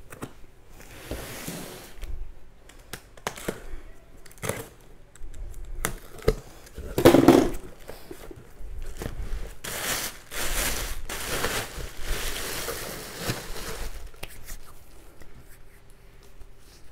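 Packaging crinkling and rustling with scattered knocks as toiletry bottles are handled and set down. There is a louder burst about seven seconds in and a longer stretch of rustling in the second half.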